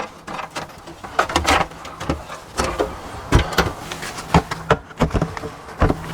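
Irregular knocks and clicks of a track saw being handled and set on its guide rail.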